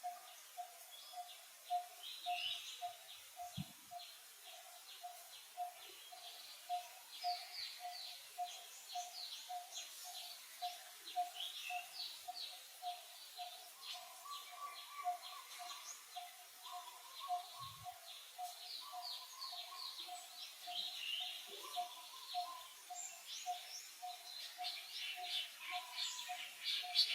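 Forest birds chirping and trilling, with a busier burst of rapid chirps near the end, over a steady pulsed call repeating about twice a second.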